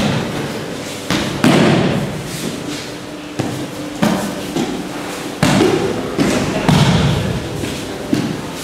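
Aikido students falling and rolling on tatami mats: about eight thuds of bodies landing at uneven intervals, some coming in quick pairs.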